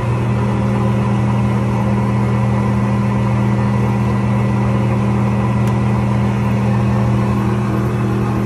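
Birmingham KV50 vertical bandsaw running idle with no workpiece: a loud, steady motor hum with the blade whirring.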